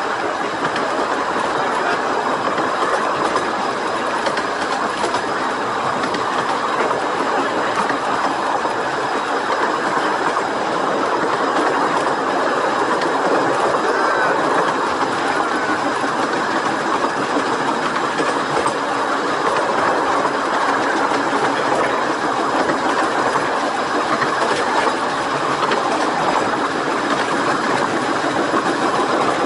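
A steam-hauled 15-inch gauge miniature railway train running steadily along the line, heard from an open carriage window: a continuous noise of the carriages and wheels on the rails.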